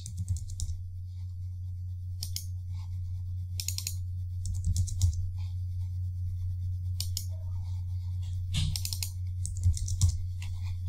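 Computer keyboard keystrokes and mouse clicks in scattered short groups as new depth values are typed in, over a steady low hum.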